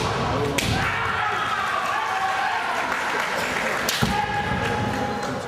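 Kendo fighters yelling long, drawn-out kiai shouts, with two sharp knocks, about half a second in and about four seconds in, from the bout's bamboo shinai and stamping feet on the hall's wooden floor.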